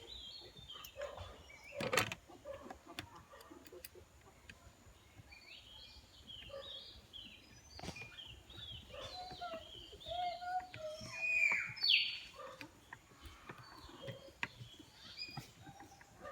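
Birds chirping repeatedly with short quick calls throughout, with a few lower calls in between. A couple of sharp knocks sound, one about two seconds in and another about eight seconds in.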